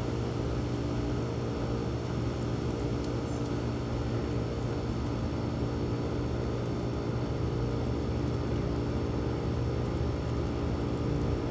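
1969 Fedders 8,000 BTU window air conditioner running, its Tecumseh AJ reciprocating compressor giving a steady low hum under an even rush of air.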